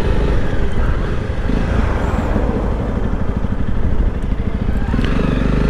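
Motorcycle engine running at low road speed, a steady low-pitched pulsing.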